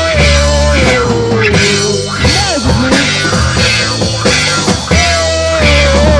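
Rock band demo recording: drums, bass and guitars playing a steady beat. A held melody note slides slowly down in pitch near the start, and the phrase repeats about five seconds in.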